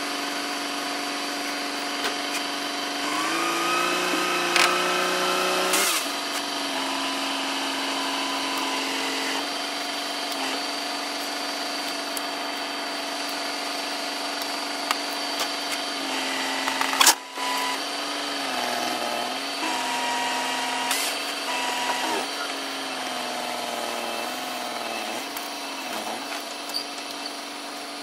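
Farm dump truck's engine running revved up with its hydraulic hoist pump whining steadily as the dump bed tips up to unload dirt. The pitch rises a few seconds in and sags several times later as the load shifts, with one sharp knock about two-thirds through.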